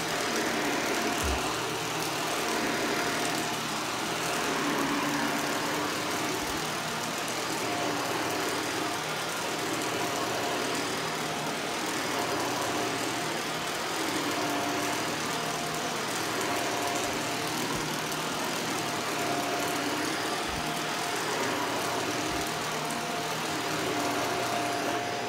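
Shark vacuum cleaner running steadily on carpet, its motor sound rising and falling in a repeated sweep about every two seconds.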